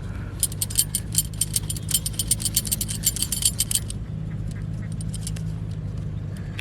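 Rapid, irregular metallic jingling and clicking for about three and a half seconds, stopping about four seconds in, over a steady low hum.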